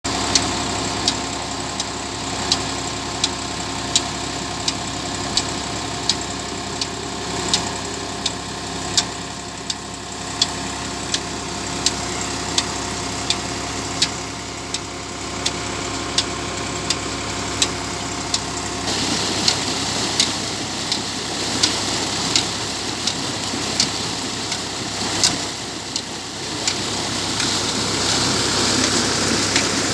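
Massey Ferguson 260 tractor's three-cylinder diesel engine running steadily under load, driving a tubewell water pump, with a sharp click repeating about every 0.7 s. From about two-thirds of the way in, the sound of rushing water from the pump outlet grows louder.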